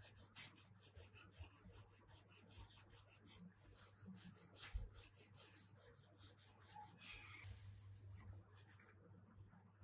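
Small hand wire brush scrubbing rust and grime off a rusty bench vise, faint quick back-and-forth strokes with a short pause about a third of the way through, stopping shortly before the end.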